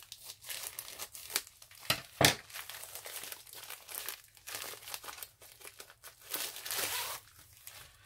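Plastic wrapping crinkling and rustling as hands handle a rolled diamond painting kit, in irregular crackles. A sharp thump about two seconds in is the loudest sound.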